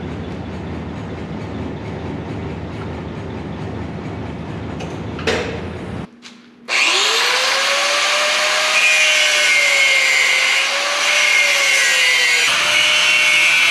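A steady low rumble of shop machinery that cuts off about six seconds in; after a brief gap, a power tool starts working on steel, a loud bright hiss over a motor whine that dips and rises as it loads.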